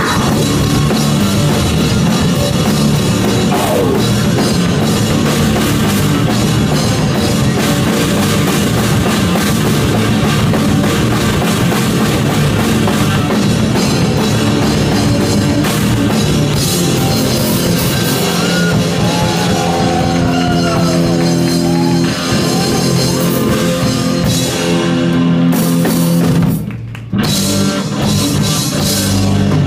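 Rock band playing live and loud: drum kit, electric bass and electric guitar, with a brief stop near the end before the band comes back in.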